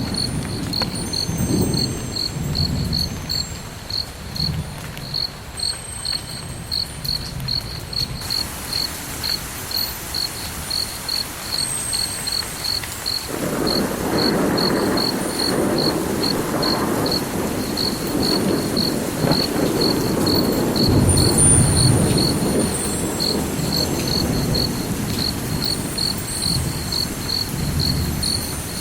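A cricket chirping steadily, about two high chirps a second, over a low rushing rumble that grows louder about halfway through.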